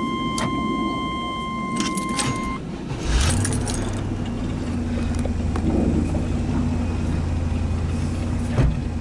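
Keys jangling in the ignition of a 1996 Chevy Tahoe with a steady electronic tone sounding, which stops after a couple of seconds. About three seconds in, the engine cranks briefly and catches, then runs at a steady idle.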